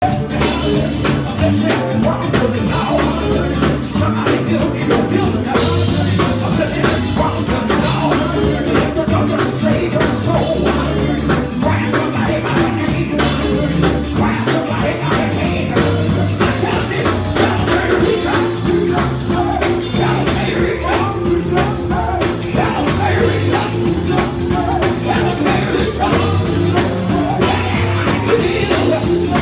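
Loud rock music with a steady beat, and a held note joining in about eighteen seconds in.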